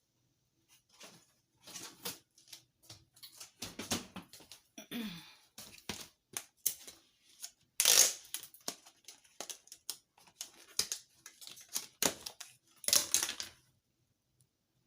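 Irregular clicks, taps and rustles of hands-on kitchen food preparation, with louder knocks about eight and thirteen seconds in.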